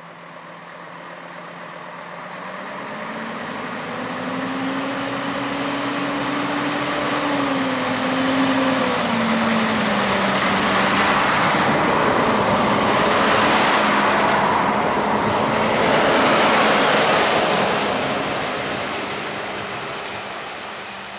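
Two coupled class 654 (Stadler RegioShuttle RS1) diesel railcars pulling away and passing close by. The engine note climbs in pitch, then drops about a third of the way in, with a high hiss about then. The engine and wheel noise grow loud as the units go past, then fade.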